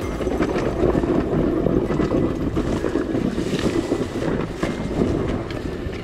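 Yamaha YZ125X two-stroke dirt bike engine running under way, buried in wind noise on the camera microphone, with scattered knocks and rattles from the bike over rough ground.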